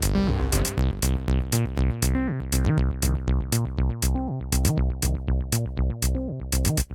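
Electronic background music with a drum-machine beat, fading out at the end.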